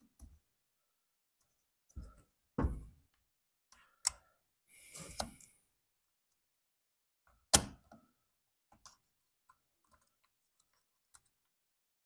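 Scattered small clicks and knocks of plastic and metal parts as a small angled pick tool works the throttle and choke linkage pins into their rubber boots on a Husqvarna 455 Rancher chainsaw. There is a short scrape about five seconds in, and the sharpest click comes about seven and a half seconds in.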